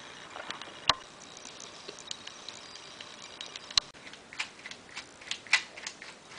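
Sharp plastic clicks and clacks from a LEGO pistol's rubber-band blowback mechanism as the trigger and slide snap back and forth. One click about a second in, a loud snap near four seconds, then a quick run of clacks.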